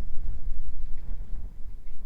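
Wind buffeting the microphone as a loud, uneven low rumble, with a few faint crackles from a beach bonfire.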